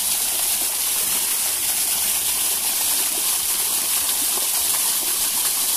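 Steady rush of water from a small waterfall spilling into a stream.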